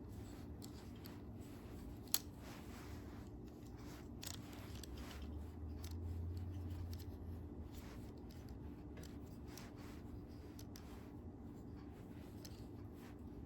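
Tripod parts being handled and fitted: scattered small clicks and rattles, with one sharp click about two seconds in. A low hum runs for a couple of seconds near the middle.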